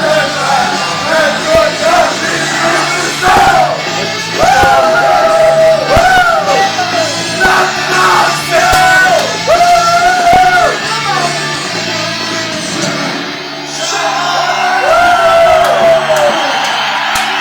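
Music with loud, shouted singing.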